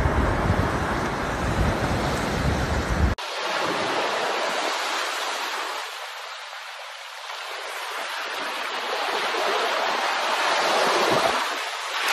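Surf washing onto a pebble beach. For the first three seconds wind rumbles on the microphone over the waves. After a sudden cut the surf hiss dips and then swells again near the end.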